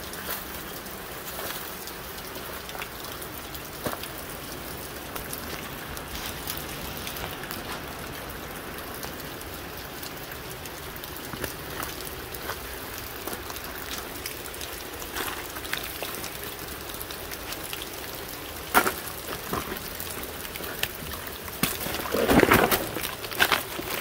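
Steady rushing of a waterfall, with scattered drips and ticks over it and a louder scuffing sound near the end.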